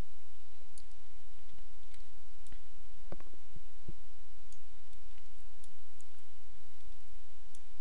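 Computer mouse clicks, light and scattered, with a few firmer ones about three to four seconds in, over a steady low hum and a faint steady tone.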